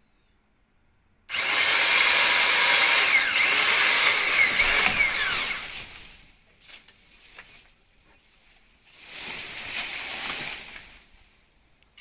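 Black and Decker 550W Alligator powered lopper, an electric chain-saw lopper, running as it cuts a tree branch. It starts abruptly about a second in, runs for about four seconds and winds down; a second, shorter and quieter run comes later.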